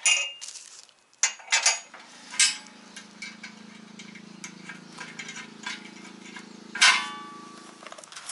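Steel bolts, washers and locking nuts clinking and clicking as they are handled and fitted by hand to a steel hitch bracket, with the crinkle of bubble wrap underneath. A steady low hum starts about two seconds in and stops just before the end.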